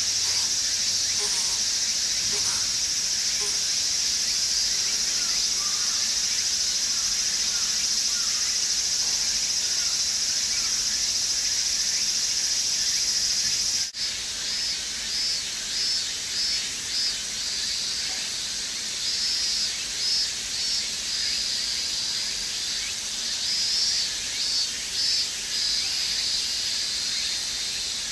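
Outdoor insect chorus: a steady shrill high-pitched drone, which after a cut about halfway through turns into short pulses several a second.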